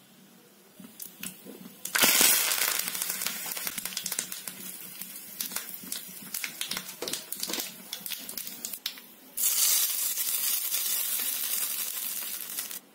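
Tempering in hot oil: mustard seeds crackling and popping, then a loud sizzle with scattered pops as curry leaves fry. A second loud burst of sizzling starts about nine seconds in and cuts off suddenly near the end.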